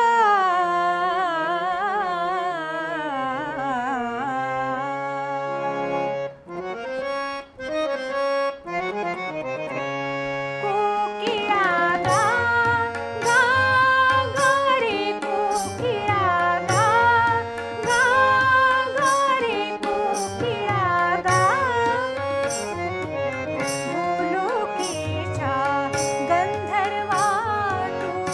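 A woman sings an Indian song to her own Bengude harmonium. About six seconds in the harmonium plays a short melody alone. From about eleven seconds in, tabla joins with a steady rhythm as the singing resumes.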